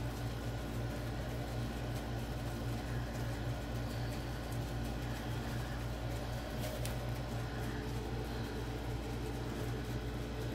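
Steady low mechanical hum from a running appliance, with one faint tick about two-thirds of the way through.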